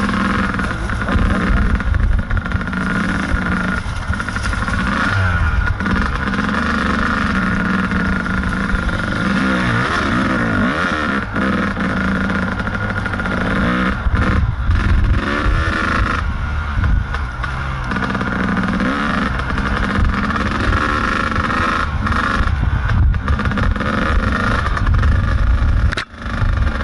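Kawasaki KDX220 two-stroke single-cylinder dirt bike engine under the rider, revving up and down continuously as it is ridden along the trail. The engine briefly drops off near the end.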